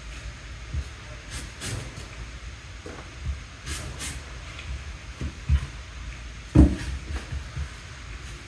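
Knife carving grooves into an apple: scattered crisp cutting scrapes and light knocks, with one louder knock about six and a half seconds in.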